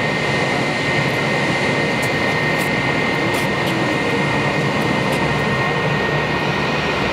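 Airbus A319-132's IAE V2500 turbofan engines running at taxi power: a steady jet noise with a high whine held on one pitch.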